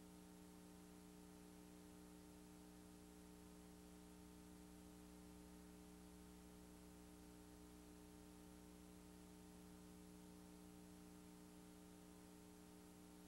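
Near silence: a faint, steady electrical hum with a low hiss, unchanging throughout.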